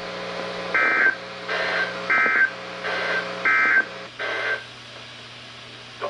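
A NOAA weather radio receiver sounding the EAS/SAME end-of-message data code: three short bursts of digital data tones about 1.3 s apart, each followed by a fainter copy, over a steady low hum. The bursts mark the end of the alert just broadcast.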